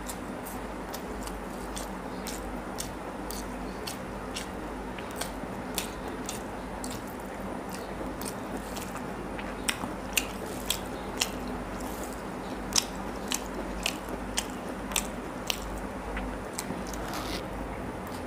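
Close-miked mouth sounds of a person eating rice and curry by hand: wet chewing and smacking, with short sharp clicks that come louder and closer together from about halfway through.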